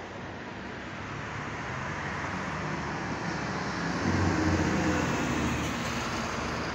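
A flatbed tow truck's diesel engine drives past on the street, growing louder to a peak about four seconds in and then easing off as it moves away, over steady city traffic noise.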